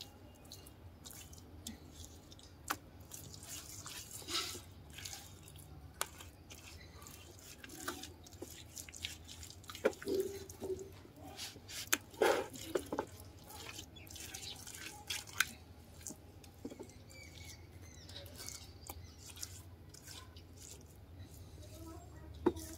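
Hand smearing and patting wet mud plaster onto a clay cooking stove: soft wet dabs and scattered small clicks over a low steady hum.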